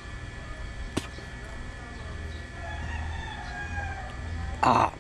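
A rooster crowing once, a call of about a second and a half beginning about two and a half seconds in. Near the end, a short loud burst of noise close to the microphone.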